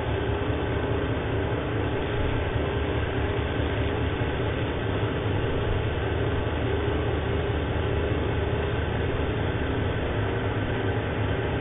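Wood lathe running steadily while a handful of wood shavings is pressed against the spinning hardwood base to burnish it.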